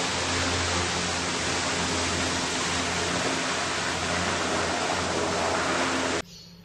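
Hovercraft running across water: a steady low engine and fan drone under a dense hiss of air and spray. It cuts off suddenly shortly before the end.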